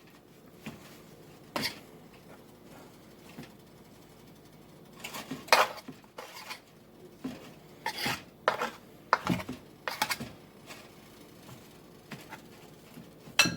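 Irregular knocks and clinks of kitchen bowls and utensils as a battered chicken breast is dredged in flour, busiest from about five to ten seconds in, with one sharp knock near the end.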